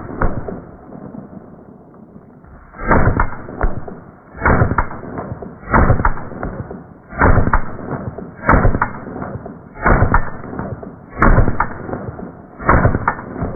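A string of deep, muffled booms from an H&K MP5 .22 LR pistol, about one every second and a half, some coming in quick pairs, each trailing off before the next.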